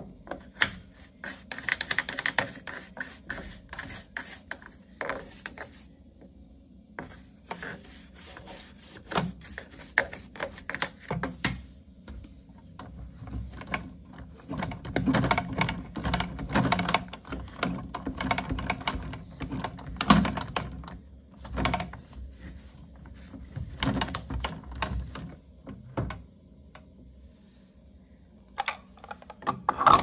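Toothbrush scrubbing inside the plastic drain-pump filter housing of a front-loading washing machine: a rapid scratchy rasping in bouts, with a few short pauses.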